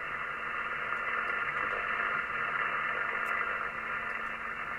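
Lafayette 1200FM CB radio's receiver giving a steady hiss of static through its speaker, cut off above the voice range, with a faint low hum. It is the sign that the SSB receive is working again, now that the shorted FET pushing 6 volts onto the AGC line has been replaced and the AGC set back near 2 volts.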